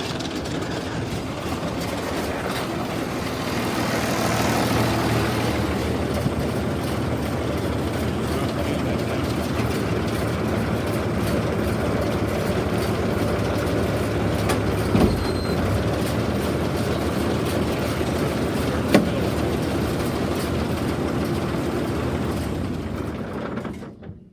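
Tractor running the New Holland 850 chain round baler off the PTO, its floor chains and sprockets clattering in a loud, steady racket with a couple of sharp clacks. The noise cuts off suddenly near the end.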